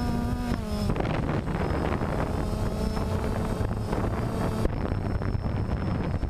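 DJI Phantom quadcopter's motors and propellers whirring, heard from the camera slung under the drone, a whine of several tones that shifts in pitch about a second in and again near the end. Heavy wind and propeller-wash noise on the microphone lies under it.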